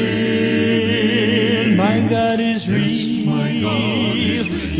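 Gospel quartet singing a cappella: several voices holding close-harmony chords, wavering in vibrato, with a brief break between phrases midway.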